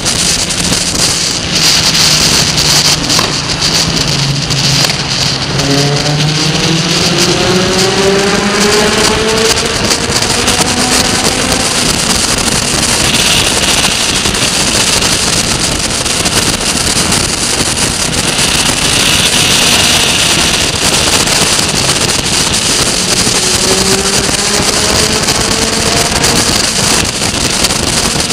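Suzuki Bandit 1200 motorcycle's inline-four engine running under heavy wind rush on the microphone. Its pitch climbs steadily twice as the bike accelerates, once in the first third and again near the end.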